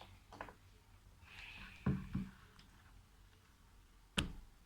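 A few small clicks and knocks from objects being handled and set down, with a soft rustle in between; the sharpest knock comes about four seconds in.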